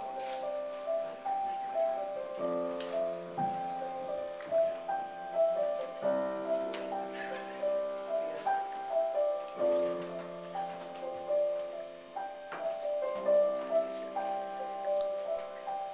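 Solo piano playing a slow instrumental introduction: sustained chords changing about every three and a half seconds under a repeating melody line.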